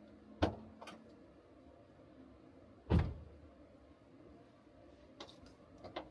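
A few short knocks and thumps, as of things being handled and set down: two close together near the start, the loudest about three seconds in, and a few lighter clicks near the end.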